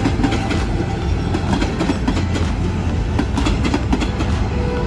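THN/NFK diesel railcar set rolling past, its wheels clicking over the rail joints over a steady low rumble.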